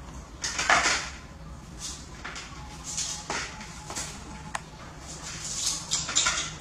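Knife scraping and slicing a peeled shoot over a plastic basin: a series of short scraping strokes, with a sharp click about four and a half seconds in, over a steady low hum.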